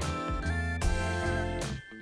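Upbeat instrumental background music with plucked-string and steady bass notes.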